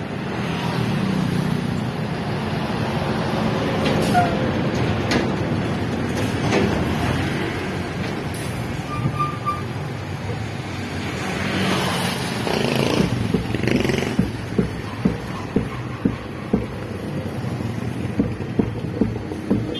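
Street traffic passing close by: a heavy truck, then motorcycles and tricycles going by. In the second half there is a run of sharp ticks, about two a second.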